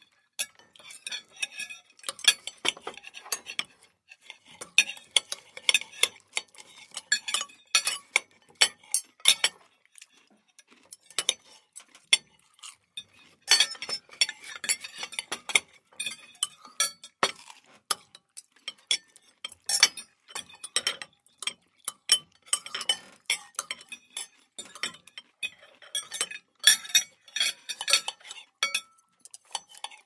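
Cutlery clinking and scraping against plates and dishes as people eat dinner, in quick irregular taps and clinks with short lulls.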